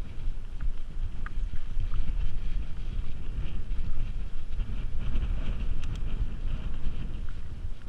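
Wind rumbling on the GoPro's microphone as a mountain bike rolls fast over a dirt and rock singletrack, with the tyres crunching on grit and a few short sharp clicks and rattles from the bike over rough ground.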